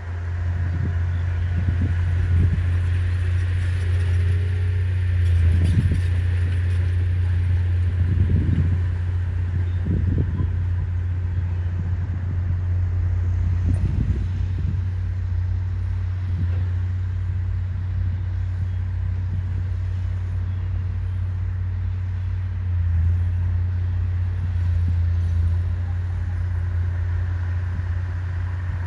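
Bulldozer's diesel engine running steadily under load: a continuous low drone with brief swells now and then.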